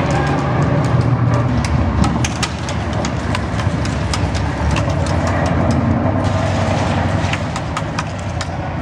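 Airsoft guns firing: scattered single sharp cracks at irregular intervals over a steady low rumble.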